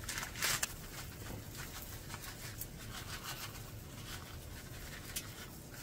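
Faint sizzle of a cabbage batter cooking in a griddle pan, with a few soft taps as crunchy Baby Star snack noodles and diced mochi are scattered over it.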